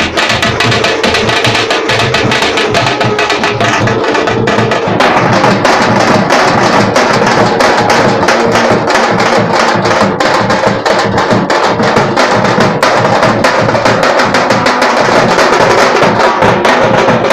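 A band of large double-headed dhol drums beaten with sticks in a fast, loud, driving rhythm. Twice in the first few seconds a steady held note sounds over the drumming, and about five seconds in the drumming grows denser.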